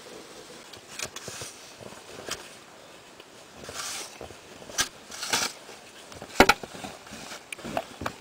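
Footsteps crunching in deep snow, irregular and uneven, with a sharp knock about six and a half seconds in, the loudest sound.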